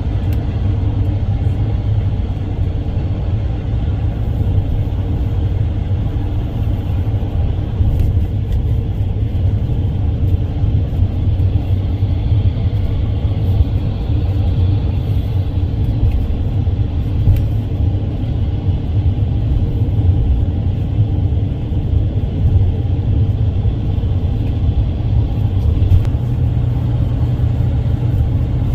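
Steady low road rumble and engine drone of a moving vehicle, heard from inside the cabin.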